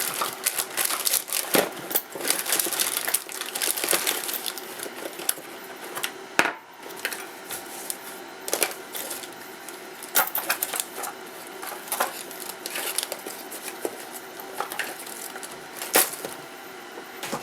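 Small hand tools clicking and scraping against a circuit board in quick, irregular bursts while working at a pin stuck solid in the board.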